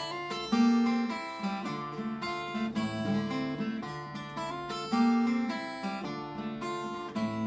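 Acoustic guitar played solo, picked and strummed chords ringing on, with firmer strums about half a second in and again about five seconds in.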